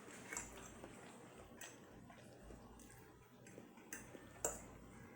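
Quiet close-up eating sounds: soft chewing with a few small sharp clicks, the loudest one near the end.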